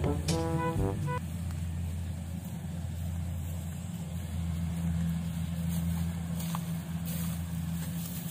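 A rice combine harvester's engine running steadily, a low even hum, after a snatch of background music that stops about a second in.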